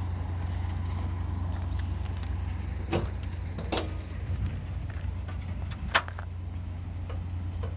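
Daihatsu Mira Gino's bonnet being opened: a few knocks and clicks from the latch and the lifted hood, with the sharpest click about six seconds in as the bonnet is propped, over a steady low hum.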